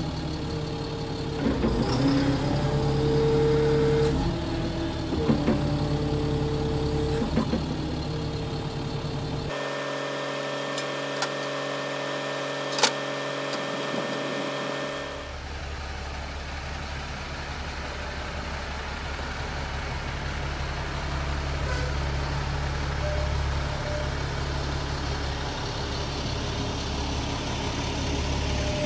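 Diesel engine of an M1089A1 FMTV military wrecker running, with a pitched whine that rises and falls several times in the first nine seconds and a few clicks. It then runs on steadily to the end.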